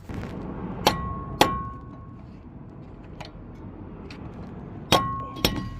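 Hammer blows on metal: four sharp strikes in two pairs, each pair about half a second apart, each strike leaving a brief ringing tone.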